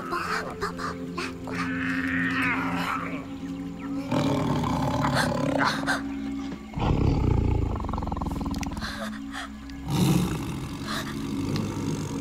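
Tiger growling and roaring over steady background music, loudest a little past the middle with another growl near the end.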